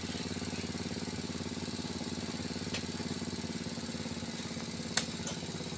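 Mitsubishi Canter truck's diesel engine idling steadily, with a couple of light knocks over it.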